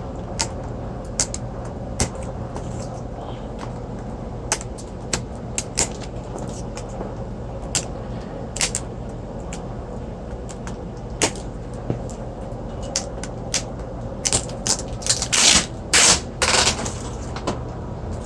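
Unboxing handling of a cardboard box and its packaging: scattered clicks and knocks, then a few louder scraping, rustling bursts near the end, over a steady low hum.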